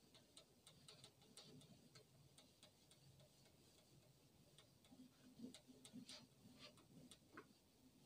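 Faint, irregular light clicks and taps, several a second, from a whiteboard being wiped clean with a duster, with a few soft knocks against the board around the middle.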